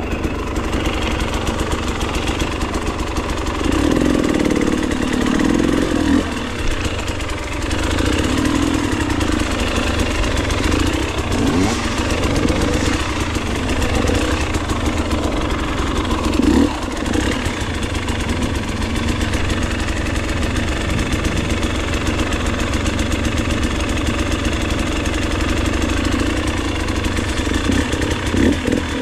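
Enduro dirt bike engine idling steadily, with its sound swelling louder a few times between about four and seventeen seconds in.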